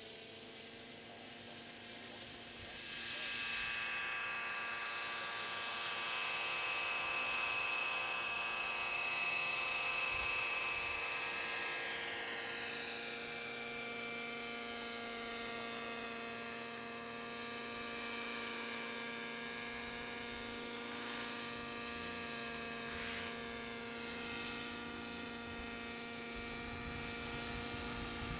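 Knight 50 3D radio-controlled model helicopter in flight: a steady, pitched hum of its drive and rotor with a higher whine above it. It grows louder about three seconds in, and a high tone slides slowly down in pitch over the following several seconds.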